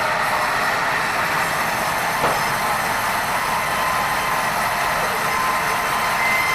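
Band sawmill machinery running, a steady dense mechanical noise, with one brief knock about two seconds in.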